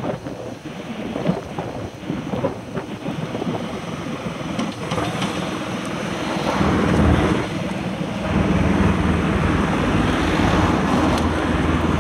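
Wind noise on the microphone with road traffic passing close by. A car goes past about six seconds in, and another vehicle's engine stays loud through the last four seconds.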